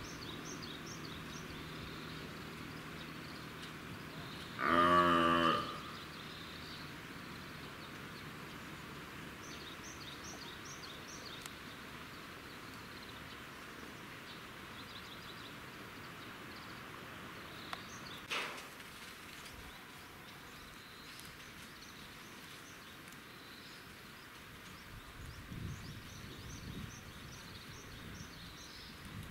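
Outdoor background noise with small birds chirping now and then. About five seconds in comes one loud voice-like call lasting about a second, and a single sharp click falls near the middle.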